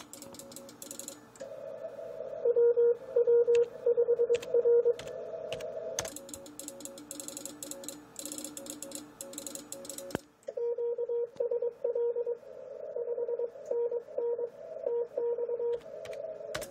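Morse code (CW) from an Icom IC-756PRO III shortwave transceiver on 10 metres: a mid-pitched keyed tone beeping in dots and dashes. It comes in two long runs, one about two seconds in and one from about ten seconds until near the end, with fainter Morse signals from other stations at lower pitch underneath. Computer keyboard clicks fall between the two runs.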